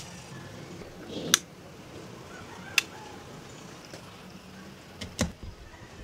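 Handling clicks from a pocket multitool and a flat burr coffee grinder as the grinder is being opened up: four sharp clicks, a second or more apart.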